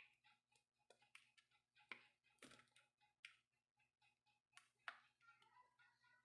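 Near silence with faint, scattered small clicks and taps.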